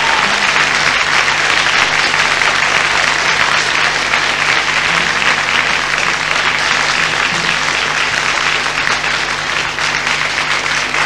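Audience applauding after a song.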